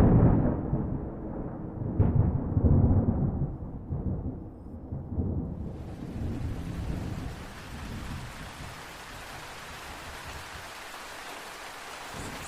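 Thunder breaks suddenly and rumbles low, with a second surge about two seconds in, then rolls away over several seconds. Steady heavy rain comes in about six seconds in.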